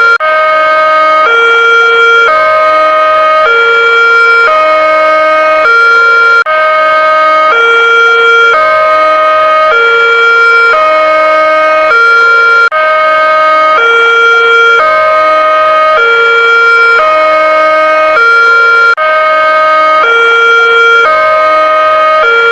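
Indonesian-style electronic railroad crossing alarm sounding continuously, alternating between a higher and a lower tone in a steady, even cycle. A brief dip every six seconds or so suggests a repeating loop.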